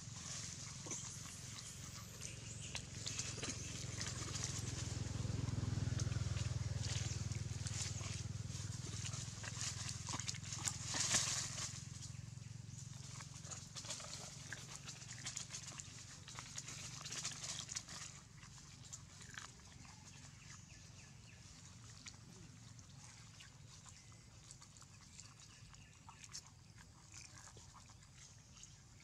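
Young macaques moving and feeding on dry leaf litter: rustling leaves and scattered clicks, with animal sounds from the troop. A low rumble under it is strongest in the first half and fades about twelve seconds in.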